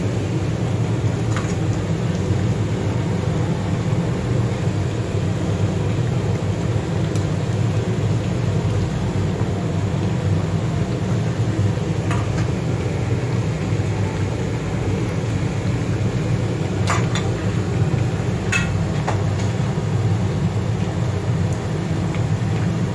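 Pan of braised rib stew boiling over a gas burner: a steady low roar with a few faint pops.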